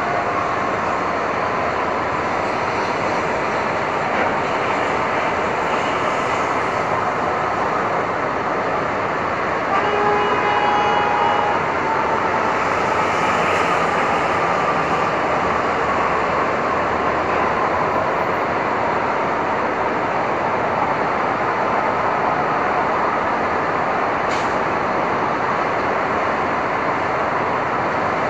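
Steady wash of Manhattan street traffic on a stormy day, with a faint slowly falling engine-like tone running through it. A vehicle horn honks once, about ten seconds in, for a second and a half.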